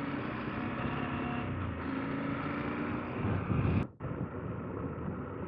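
KTM 890 Adventure R's parallel-twin engine running under way, with wind and tyre noise from riding a gravel road. The audio drops out briefly about four seconds in, then the same engine and road noise carry on.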